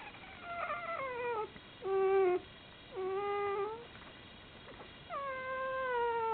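Newborn Komondor puppies crying in high, thin whining squeals: four drawn-out cries, mostly falling in pitch, the second the loudest and the last the longest.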